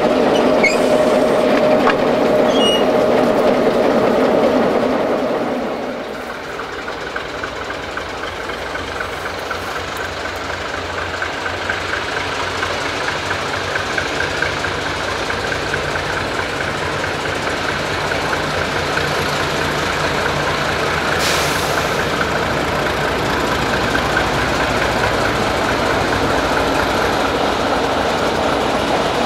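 MaK diesel locomotive's engine idling close by, a steady hum. Then a diesel locomotive running slowly toward the listener, its engine growing gradually louder as it nears, with a brief hiss about three-quarters of the way through.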